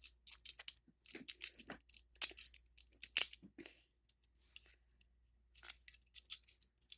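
A switchblade comb being handled: a run of short, scratchy strokes and small clicks. They go quiet for about two seconds in the middle, then start again near the end.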